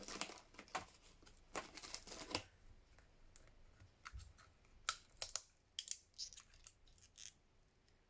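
Packaging on a roll of washi tape being worked open by hand: scattered short rustles, crinkles and small clicks, with a few brief tearing or snipping sounds.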